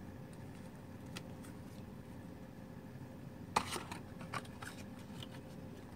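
A deck of Bicycle playing cards being fanned and handled: faint clicks of the cards, with a sharper cluster of clicks about three and a half seconds in.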